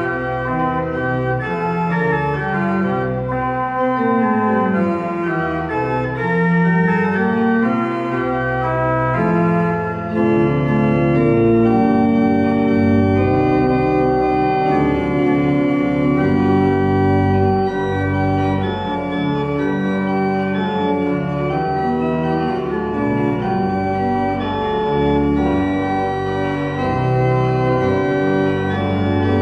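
Church pipe organ playing a piece of sustained chords over a moving bass line.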